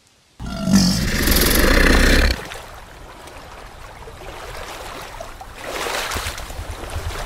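A warthog's calls: a loud, rough call starts about half a second in and lasts about two seconds, followed by quieter, noisy sound that swells again near the end.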